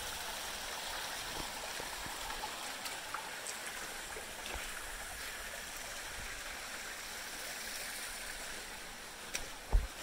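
Steady rushing of water from a small canyon waterfall and stream, with a single thump near the end.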